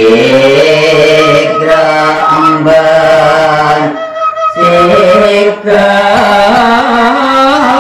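A man sings Madurese tembang macapat into a microphone, drawing out long, ornamented notes, with a bamboo flute (suling) playing along. The singing stops briefly about halfway and then goes on.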